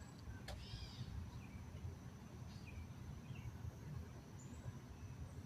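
Outdoor ambience: a steady low rumble of wind on the microphone, with a few faint, scattered bird chirps and a thin, steady high-pitched hum.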